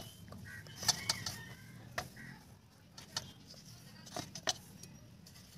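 Scattered sharp clicks and taps of a knife cutting a tomato by hand and wedges set into a steel plate, with a few short clucks of chickens in the first half.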